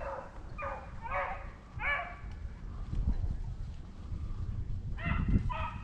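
A pack of rabbit hounds baying on a rabbit's trail during a chase: a quick run of about four short bawls in the first two seconds, then two more near the end.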